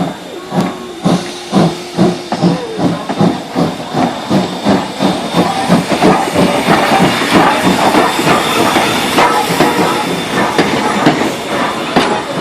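Steam locomotive chuffing with steam hissing. The exhaust beats start at about two a second and quicken as the engine picks up speed, merging into a continuous hiss about halfway through.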